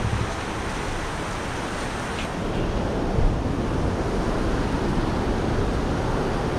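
Rushing mountain river pouring over rocks, a steady noise of water, with wind rumbling on the microphone. It grows a little louder about two and a half seconds in.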